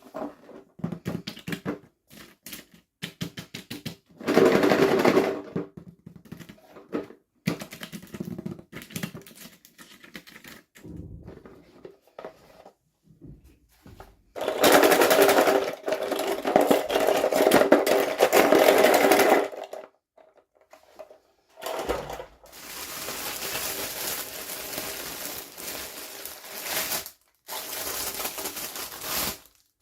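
Toy packaging being handled and opened by hand: quick plastic clicks and rattles, broken by longer bursts of rustling and crinkling, the longest about halfway through and near the end.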